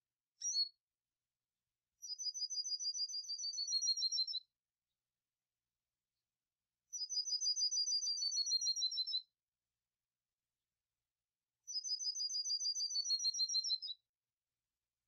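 Songbird song in the 'canto metálico' (metallic) style, played as a tutor song: a rapid trill of clear high notes about two seconds long that falls slightly in pitch toward its end, repeated three times in near-identical form with pauses of a few seconds. A single short chirp comes about half a second in.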